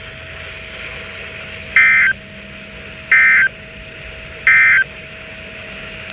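Emergency Alert System end-of-message (EOM) SAME data bursts: three short, harsh digital screeches about a second and a half apart, marking the end of the alert message, over a faint steady hum and hiss.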